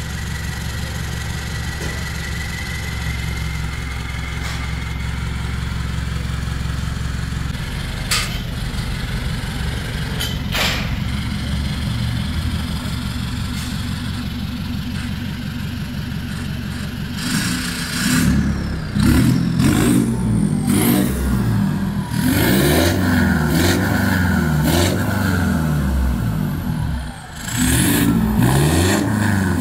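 Mitsubishi Montero Sport turbodiesel with its muffler deleted, running through a straight pipe to a Borla tip: it idles steadily with a faint rising turbo whistle at first, then from about halfway is revved again and again, the pitch climbing and falling with each blip, with a short drop near the end.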